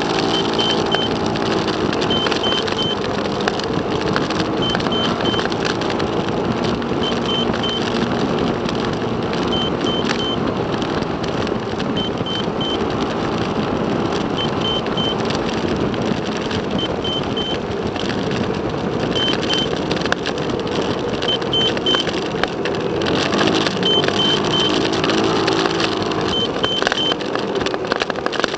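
Engine of the vehicle carrying the drive recorder running in city traffic, its pitch rising and falling with speed, under steady road and wind noise. A high triple beep repeats about every two and a half seconds.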